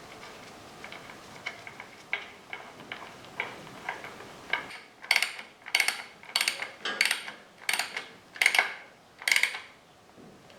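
Ratchet wrench working the gearbox drain plug back in: light ticks at first, then from about halfway a run of about eight quick ratchet strokes, roughly one every half second.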